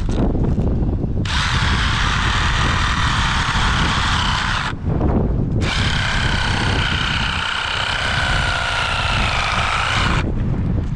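Cordless reciprocating saw with a pruning blade cutting a branch in two bursts, about three and four and a half seconds long. Its motor whine sags slightly in pitch during the second burst before the saw stops, its battery run flat. Wind rumble on the microphone throughout.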